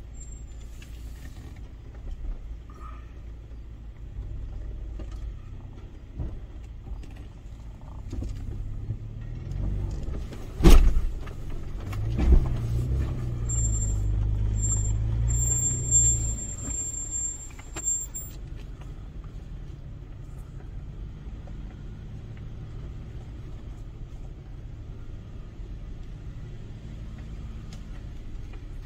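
Toyota FJ Cruiser's 4.0-litre V6 running as it crawls over a rough dirt track. A loud knock comes about ten seconds in, then a second thump, and the engine runs louder for a few seconds before settling back to a steady low rumble.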